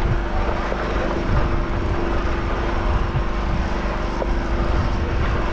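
Steady drone of an engine running, with a constant hum over a low rumble.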